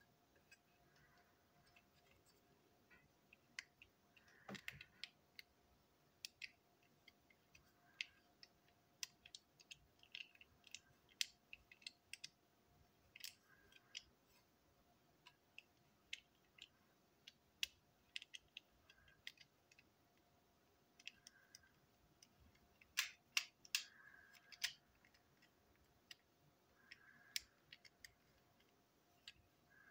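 Faint, scattered clicks and ticks of small plastic toy-train parts being handled and fitted, with a denser run of sharper clicks about three quarters of the way in.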